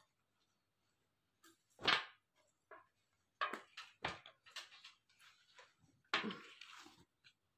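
Clothes being handled: a handful of short rustles and soft knocks as garments are picked up and laid down on a bedsheet, the longest near the end.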